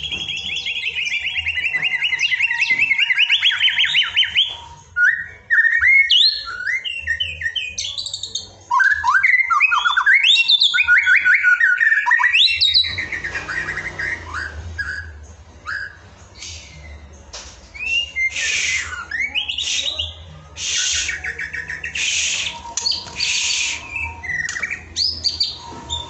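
White-rumped shama singing: rapid trilled phrases and gliding whistles, then from about halfway on, harsh rasping calls between short whistled notes.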